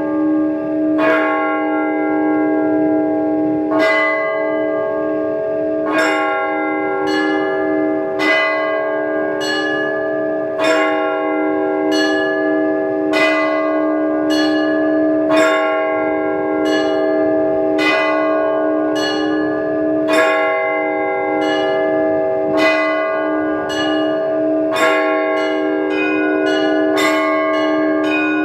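Orthodox church bells rung in a peal: several bells of different pitches struck in a steady rhythm about once a second over the lasting hum of a larger bell. The strikes come faster and denser near the end.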